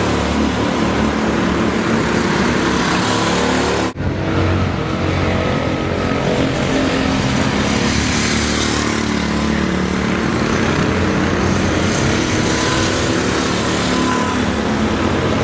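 Go-kart engines running in a race, with a brief sharp break about four seconds in.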